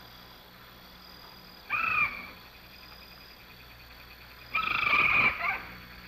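Two short, high animal calls: one about two seconds in that falls slightly in pitch, and a longer, rapidly pulsing trill near the end, over a faint steady low hum.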